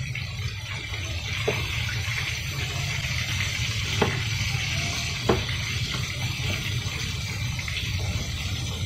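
Tilapia frying in hot oil in a pan: a steady sizzle with three sharp pops of spattering oil, over a low hum.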